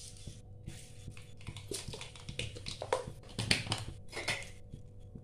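Mustard seeds crackling in hot oil in a wok: quiet, irregular pops and short sizzles, the first stage of tempering, once the oil is hot enough for the seeds to splutter.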